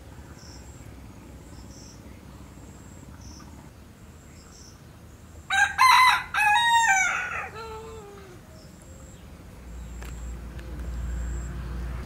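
A rooster crows once, about five and a half seconds in: a loud call lasting about two seconds that drops in pitch at the end.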